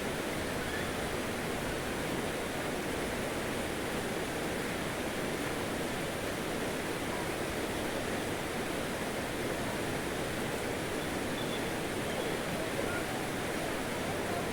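Steady rushing noise at an even level throughout, with no distinct events.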